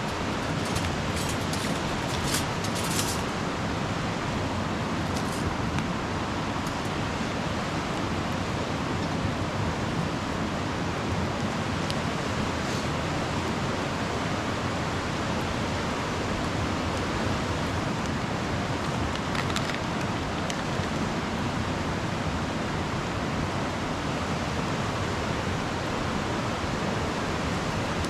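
Steady rushing of a river, an even unbroken wash of water noise, with a few faint clicks near the start and again about two-thirds of the way through.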